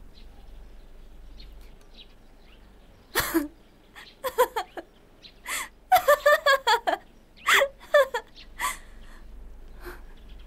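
A woman's tearful, bitter laughter in short broken bursts, starting about three seconds in and dying away near the end.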